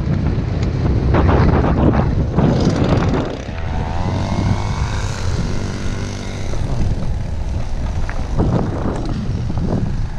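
Wind buffeting a helmet-mounted camera's microphone while a downhill mountain bike rolls over a dirt and gravel track, with bursts of tyre and gravel noise. In the middle a pitched whine rises and then falls.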